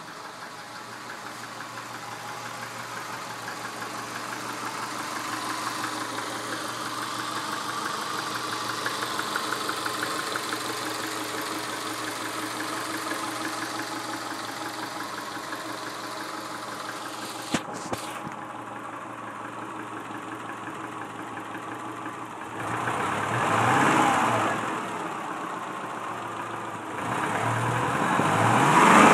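1999 Subaru Forester's 2.5-litre EJ25 flat-four idling with a rapid, steady knock: piston slap in a worn, high-mileage engine. A single sharp click a little past halfway, then the engine is revved briefly twice in the last third.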